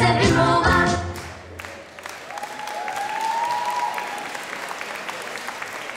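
A pop song with singing cuts off about a second in, and audience applause follows for the rest. A single short rising tone sounds over the clapping near the middle.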